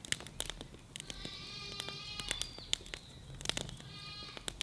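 Wood campfire crackling with irregular sharp snaps. Two drawn-out calls of steady pitch, each about a second long, come about a second in and again near the end.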